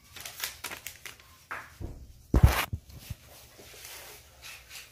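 Crinkling and crackling of a thin white sheet being handled, then a loud thump about two and a half seconds in.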